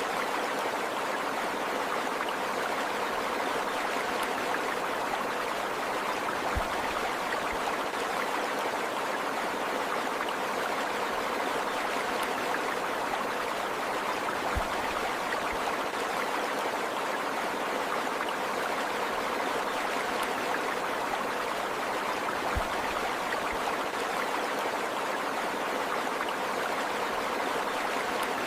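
A stream of running water flowing steadily, with a few soft low thumps at intervals.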